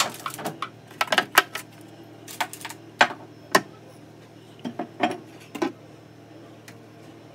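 Glass jars and small containers clinking and knocking against a metal cabinet shelf rack as they are picked up and set back down, in a quick, irregular run of sharp clinks and taps.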